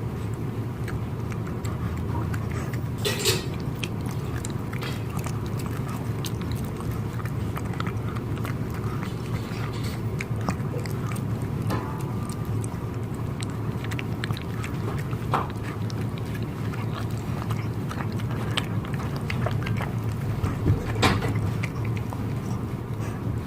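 Dogs eating boiled liver and cabbage: scattered chewing clicks, a few louder than the rest, over a steady low hum.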